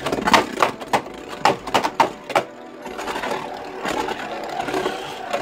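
Super Hyperion Beyblade Burst top spinning in a clear plastic stadium. For the first couple of seconds it rattles with rapid clicks as it knocks around, then it settles into a steady whir of its tip grinding on the plastic floor.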